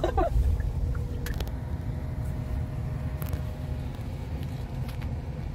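Steady low road and tyre rumble inside a delivery van's cab as it drives slowly, with a faint steady whine underneath and a couple of light clicks.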